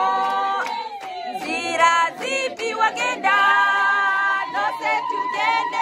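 A group of voices singing together a cappella, with some notes held for about a second.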